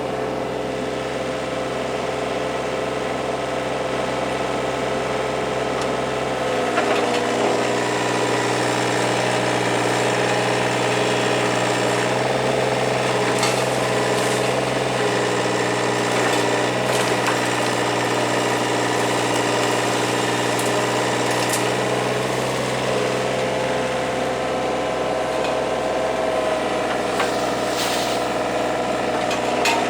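Hitachi 35 mini excavator's diesel engine running steadily. It picks up slightly about seven seconds in as the machine works, with a few short knocks later on.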